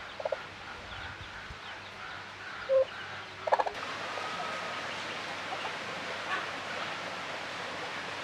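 Farmyard poultry: a few short clucks and calls, three of them loud, over faint high peeping of chicks. About four seconds in, the calls stop and a steady outdoor hiss takes over.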